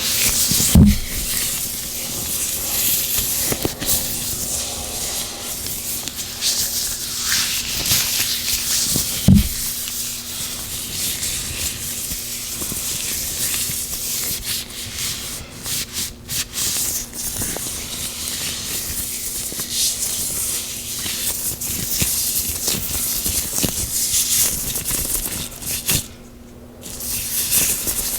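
Oiled gloved hands rubbing close to the microphone: continuous slick, hissy rubbing, with a soft thump about a second in and another about nine seconds in, and a short lull near the end.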